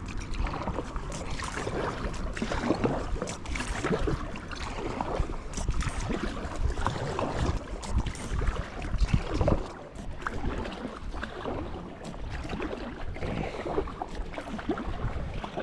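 Kayak paddle strokes splashing and dripping water beside a Kokopelli Moki I R-deck inflatable kayak, with a steady wash of water throughout.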